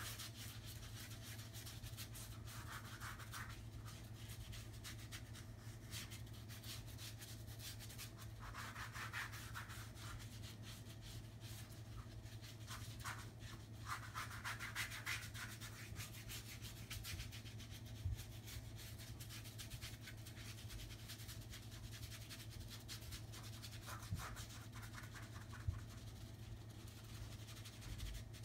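Paintbrush bristles scrubbing acrylic paint onto canvas in repeated scratchy strokes that come in spells, with a few faint taps. A steady low hum runs underneath.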